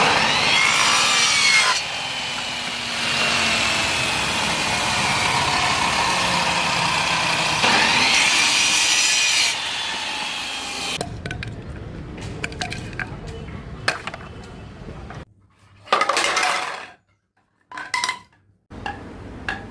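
Bamboo being sawn, a loud continuous rasping through the first half. Then come shorter scrapes and knocks, with abrupt cuts to silence between them.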